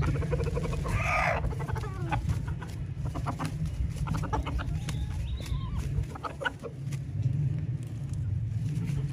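Domestic chickens clucking as they peck at food scraps, with short calls throughout and one louder call about a second in; a steady low rumble runs underneath.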